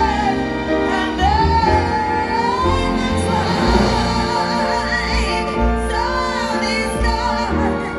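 Woman singing a slow ballad live with orchestra and piano, holding long wavering notes with vibrato over sustained orchestral chords.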